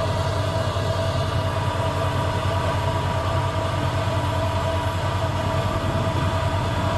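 Tractor diesel engine running steadily under load as it pulls a four-row maize planter, a low drone with a continuous fast mechanical rattle over it.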